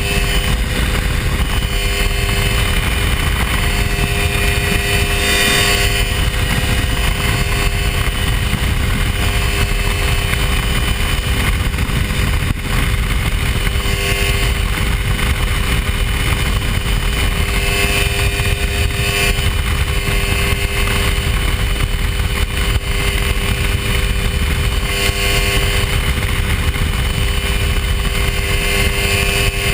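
Hy-Tek Hurricane ultralight's engine and propeller running steadily at constant power, a loud even drone over a heavy rumble.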